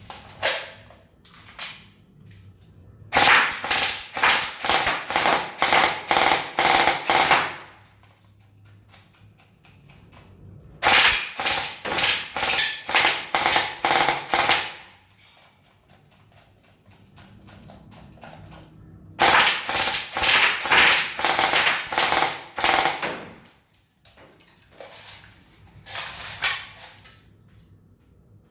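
King Arms Troy M4 airsoft electric gun (AEG) firing: three long strings of rapid shots, each about four seconds long, and a few short strings near the end.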